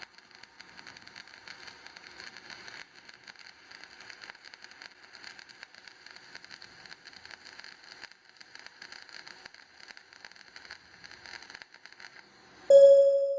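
Stick (shielded metal arc) welding arc crackling and sizzling steadily, with brief breaks. Near the end a loud pitched sound effect cuts in suddenly.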